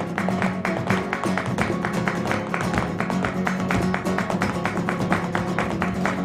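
Flamenco guitar playing a fast rhythmic passage between sung verses, dense sharp strokes over sustained notes, with no singing.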